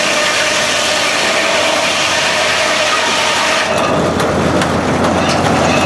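Antique sawmill sawing through a log on its carriage: a loud, steady, hissing cut that ends about three and a half seconds in. After that the mill's engine and carriage keep running, with a few sharp clanks.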